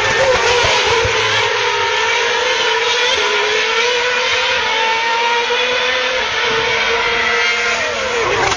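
2010 Formula 1 cars' 2.4-litre V8 engines running at high revs, a dense continuous high-pitched wail that drifts slowly in pitch and drops sharply near the end as a car goes past, heard through an old mobile phone's microphone.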